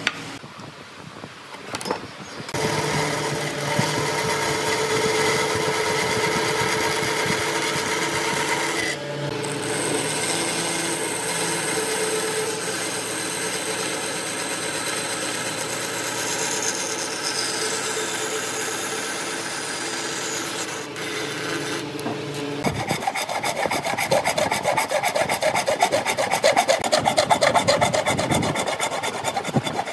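A bandsaw runs steadily while cutting pine, with a brief dip about a third of the way in. It stops about three-quarters of the way through, and a fine-toothed handsaw takes over, sawing pine by hand in quick back-and-forth strokes. The hand sawing is the loudest part.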